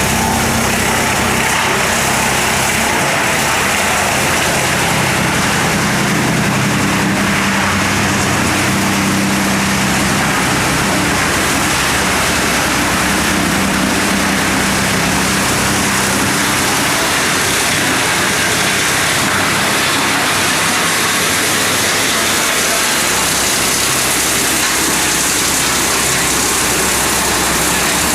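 Integrated wood chipper running, a loud, steady mechanical noise with no break.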